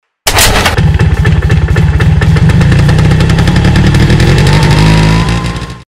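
Motorcycle engine running with a fast, even beat, starting abruptly and fading out near the end.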